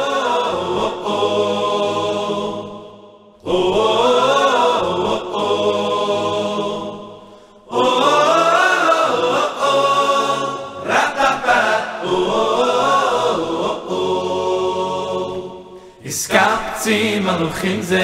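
Background music: a choir singing long, drawn-out phrases with short breaks between them.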